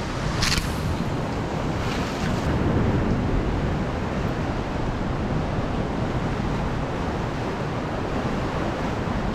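Sea swell surging and breaking against the rock cliff below, a steady rushing wash, with wind on the microphone. A brief high hiss about half a second in.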